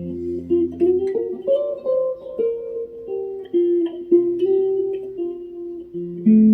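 Plucked-string instrument, guitar-like, improvising a slow melody of single plucked notes that ring and fade. A low sustained note underneath drops out about a second in and returns near the end.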